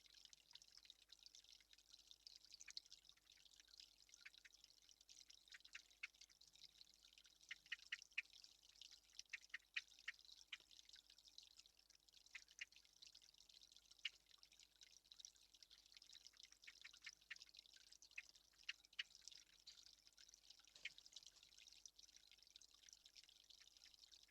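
Faint, irregular dripping clicks, a few a second and bunched in places, over a soft high hiss.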